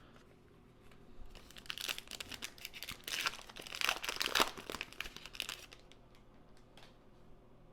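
A foil trading-card pack wrapper crinkling and tearing as it is ripped open, a run of crackling that lasts about five seconds, loudest in the middle, then dying down to soft handling.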